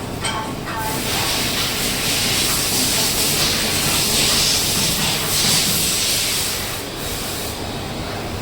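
Loud steady hissing in a machining workshop, with a brief dip about seven seconds in.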